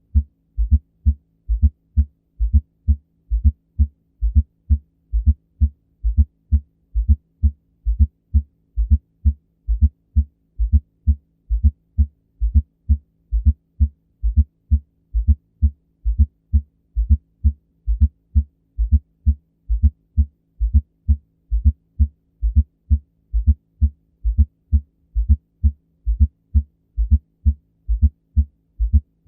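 Recorded abnormal heartbeat: a steady, regular run of low thumps.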